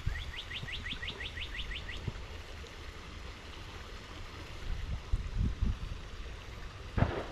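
A bird calling a quick run of about a dozen rising notes in the first two seconds, over a low wind rumble on the microphone, with a few soft thumps and a short splash-like burst near the end.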